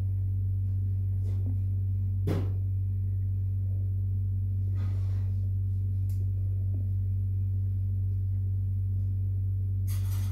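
A steady, loud low hum that does not change, with a few faint clicks over it, the sharpest about two seconds in.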